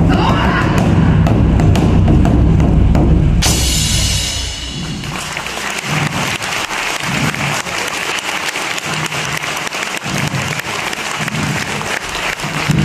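Large taiko drum beaten in a fast, dense roll that ends about three and a half seconds in with a ringing cymbal crash, followed by applause.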